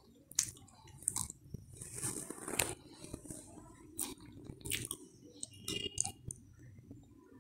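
Wooden rolling pin rolling a layered dough sheet on a wooden board: a low rolling rumble with scattered sharp clicks and knocks.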